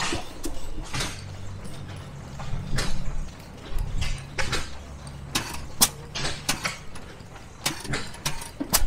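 Old single-cylinder flywheel stationary gas engines running, giving irregular sharp clacks and pops over a low hum.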